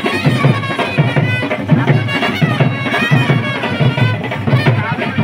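Loud procession music: drums beating a steady rhythm, with a reedy wind instrument playing wavering tones over them.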